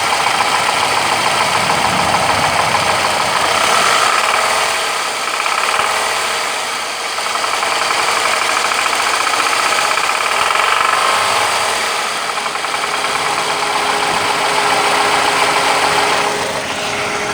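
Toyota 1AZ-FE inline-four engine running with a rapid knock. The level swells and eases a few times.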